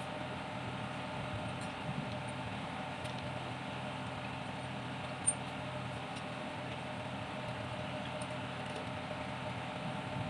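Kubota M9540 tractor's four-cylinder diesel engine idling steadily, with a single small click about five seconds in. The engine blows white smoke from its crankcase breather, which the owner puts down to the piston rings.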